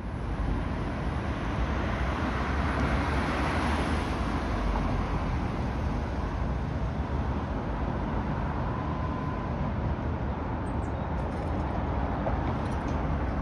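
Two-car Tatra T3 tram running along street tracks: a steady rumble of wheels and motors mixed with road noise, with a faint high whine coming in about two thirds of the way through.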